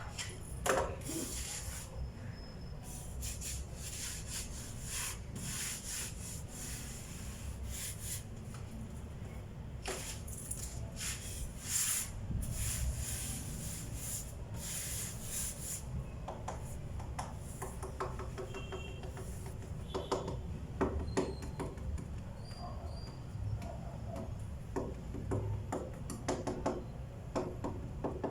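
Hand-worked scraping strokes on a wooden tabletop being filled and smoothed with putty, repeated for about the first half. After that come scattered lighter taps and clicks.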